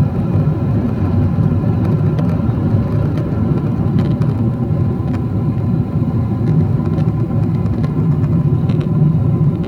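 Cabin noise of a Boeing 777-300ER at takeoff thrust: the GE90-115B engines make a loud, steady rumble with several steady whining tones over it, and faint cabin rattles and clicks come through now and then.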